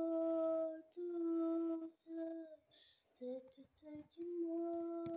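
A child's voice singing a slow tune in long held notes, each about a second, with short gaps between.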